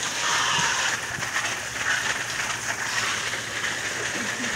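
Water splashing and spraying in an inflatable paddling pool: a steady hiss with no clear single splashes.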